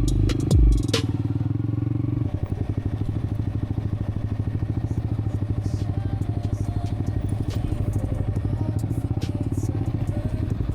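An engine running steadily with a fast, even pulsing beat. A few sharp clicks sound in the first second.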